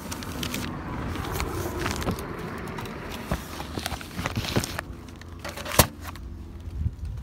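Mail and a package being pulled out of a mailbox: paper and packaging rustling amid a run of small clicks and knocks, with one sharp knock about six seconds in, then footsteps.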